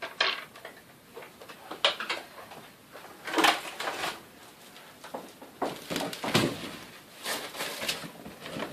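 Irregular rustling and knocking of packaging and plastic vacuum-cleaner parts being handled and lifted out of the box, with louder bursts about a third of the way in and again past the middle.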